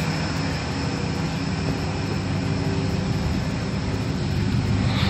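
Engine of a 4x4 running steadily at idle.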